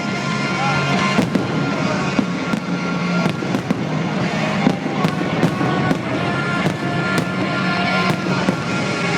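Fireworks going off in a rapid, irregular string of bangs and crackles, with music playing underneath.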